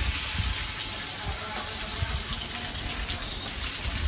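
Water poured from a plastic measuring jug into a hot wok of frying pumpkin pieces, a steady gushing hiss as it hits the pan, with a spatula stirring.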